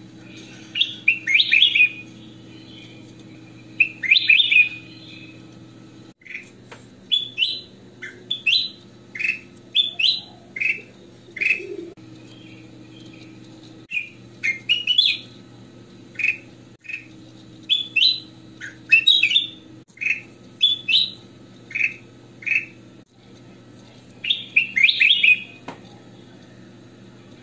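Ruby-throated bulbul (kutilang emas) singing: short bright phrases of quick whistled notes, many of them quick downward slurs, repeated about every second, with a steady low hum underneath.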